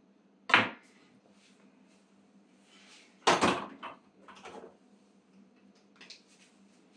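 Someone rummaging in an open refrigerator: a sharp knock about half a second in, then a cluster of knocks and rattles of jars and containers being moved about a few seconds later, and a lighter knock near the end.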